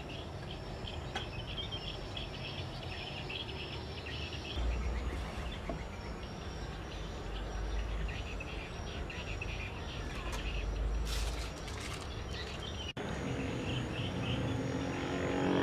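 Outdoor ambience of insects and birds chirping steadily, with a low rumble through the middle and a few light knocks about eleven seconds in.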